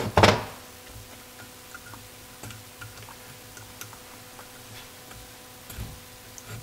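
Small metal parts clicking and tapping as the accelerator pump lever and its axle are handled and lined up on a Weber carburettor's pump housing. Two short, loud noisy bursts come right at the start, then only light scattered clicks.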